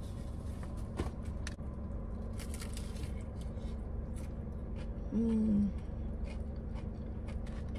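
Chewing and biting into crispy fried chicken, with scattered faint crunches and mouth clicks over a steady low hum. About five seconds in comes a brief closed-mouth 'mm', the loudest sound.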